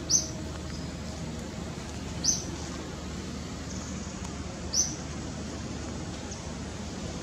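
Three short, high chirps from a bird, evenly spaced about two and a half seconds apart, over a steady background hiss.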